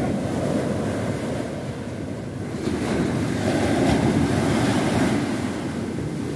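Sea surf breaking and washing up a sandy beach, mixed with wind rumbling on the microphone; the wash swells louder a few seconds in, then eases.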